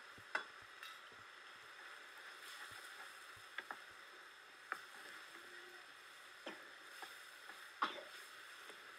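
Wooden spoon stirring greens in a clay pot, knocking sharply against the pot about eight times at irregular intervals, over a faint steady sizzle from the pot cooking on the fire.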